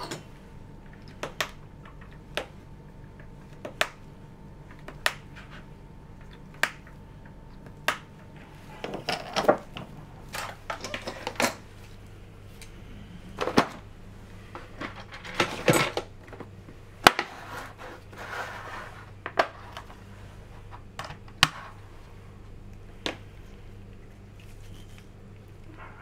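Irregular sharp clicks and short bouts of light plastic clatter from lab items being handled on a bench, over a steady low hum of lab equipment.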